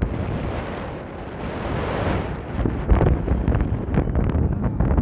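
Wind gusting across a phone's microphone, an uneven blustery noise that swells and dips, with short crackles in the second half.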